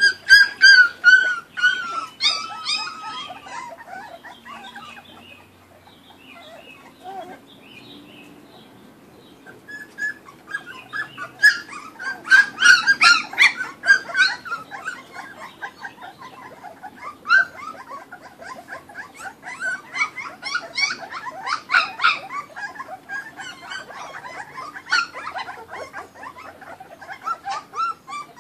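Young Kuvasz puppies whimpering and squealing in bunches of short high-pitched cries, with a quieter stretch of several seconds between the bunches.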